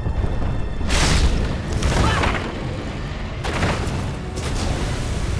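Animated battle soundtrack: orchestral score over a heavy rumble, with four loud booming blasts about a second apart.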